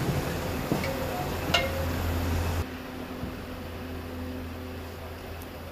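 A steady low machine hum, like a motor running, with two sharp metallic clinks of tools striking metal, the second and louder one ringing briefly, about a second and a half in. The hum drops to a lower level about two and a half seconds in.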